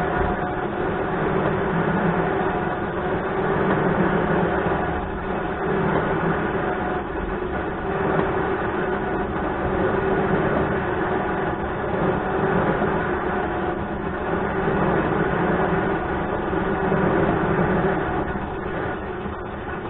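Electric trailer winch motor running steadily as it pays out its cable, a continuous drone with a hum that swells and eases every couple of seconds.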